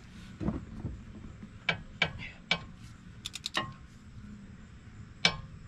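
18-inch flex-head ratchet clicking and clinking as it is worked on a stuck 17 mm belt-tensioner bolt: scattered sharp metallic clicks, with a quick run of them a little past three seconds in.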